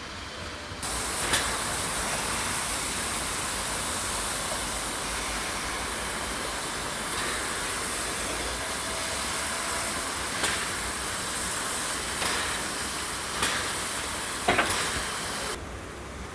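Steam hissing loudly from the Harz narrow-gauge 2-10-2 tank locomotive 99 7239-9, starting abruptly about a second in and cutting off just before the end, with a few sharp clicks during it.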